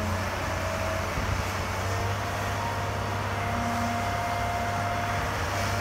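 John Deere 210G excavator's six-cylinder 6.8-litre diesel engine running steadily under digging load, with a low, even drone.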